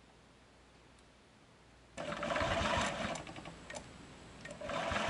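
Honda Ruckus scooter's small four-stroke single-cylinder engine starting: it fires suddenly about two seconds in with a fast, even beat, falters and fades with a few clicks, then catches again near the end and keeps running.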